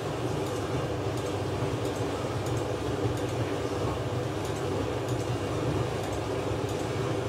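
Tamahagane-steel straight razor being honed in circles on a wet Hatahoshi stone under slurry: soft scraping with a faint high tick about every two-thirds of a second. Under it runs a steady low hum.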